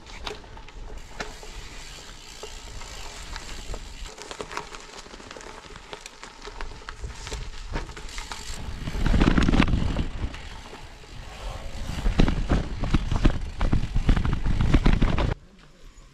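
Bicycle tyres rolling over loose gravel: a steady hiss dotted with many small clicks of stones, with louder rumbling stretches about nine seconds in and again toward the end, cutting off abruptly just before the end.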